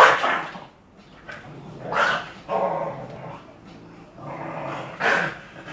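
A dog barking and growling in about four sharp outbursts, the loudest at the very start, as it lunges and snaps at gloved hands. This is an aggressive dog attacking its handler.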